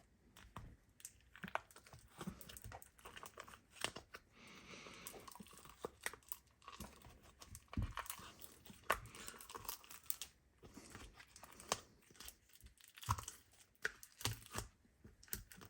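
Purple cloud slime with foam balls being squished and pulled by hand, giving faint, irregular sticky crackles and small pops.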